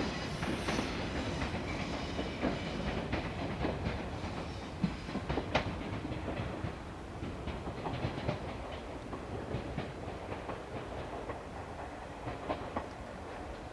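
JR West 415 series electric multiple unit running, a steady rumble with irregular clicks of the wheels over the rail joints, slowly growing fainter.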